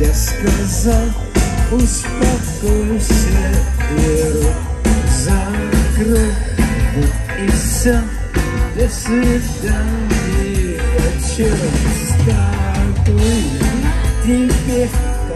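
A rock band playing live and loud: drums and bass under a wavering melodic line.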